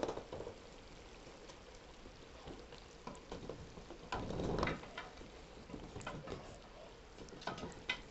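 A wooden spoon stirring a thick potato-and-tomato curry in an aluminium pot. Scattered clicks and scrapes of the spoon against the pot sound over a soft sizzle, with a louder, longer stir about four seconds in.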